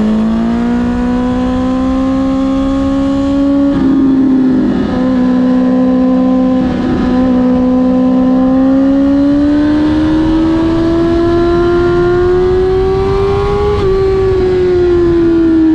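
Suzuki GSX-R1000 K5 inline-four running through an open exhaust with the dB-killer removed, held at steady revs and then slowly rising. Near the end the engine note drops away as the revs fall.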